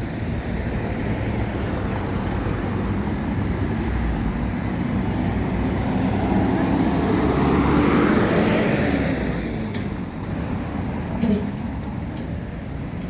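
Street traffic: a steady low engine hum with a vehicle passing close, its noise swelling to a peak about eight seconds in and then fading.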